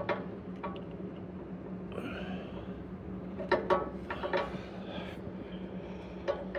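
Scattered light clicks and taps of hand tools and a metal hose clamp being worked on a fuel line, with a cluster of them about halfway through, over a steady low hum.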